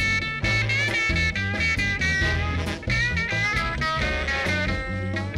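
A live blues-funk band playing an instrumental passage: a horn line from trombone and saxophone, bending in pitch, over electric bass, electric guitar and drums.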